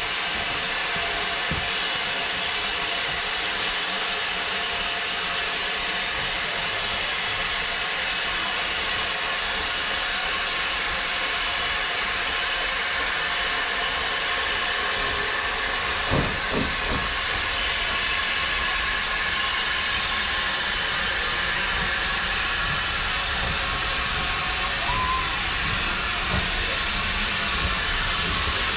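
Steam locomotive hissing steam: a loud, continuous hiss, with a few low knocks about sixteen seconds in and more near the end.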